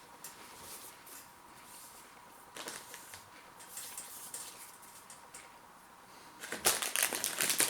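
A few faint clicks and rustles, then, from about six and a half seconds in, loud crackling and crinkling of a plastic snack packet being handled.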